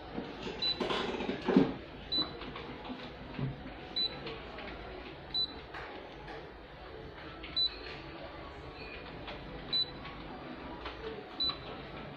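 Key-press beeps from a Canon imageRUNNER copier's touch-screen control panel: a short high beep with each button press, about seven in all, one to two seconds apart, over a low steady hum. A brief, louder muffled noise comes about a second in.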